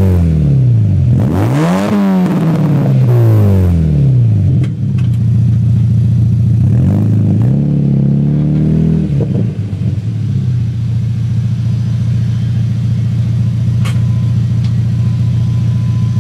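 MK3 Volkswagen Jetta's 2.0 L inline-four through a cat-back exhaust with a cheap aftermarket muffler, revved up and let fall twice, then running steadily at low revs.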